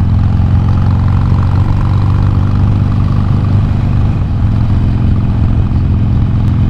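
Harley-Davidson Iron 883's air-cooled V-twin engine running steadily while the motorcycle cruises along a road, heard from the rider's seat.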